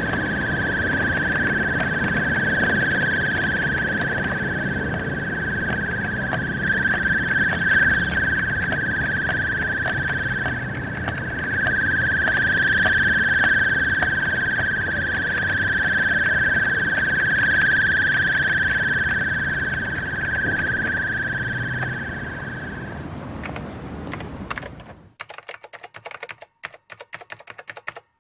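A steady high whistling tone over a rushing noise with many scattered clicks, which fades out a little after twenty seconds. Then come sparse, sharp clicks like typing on a computer keyboard, with quiet between them.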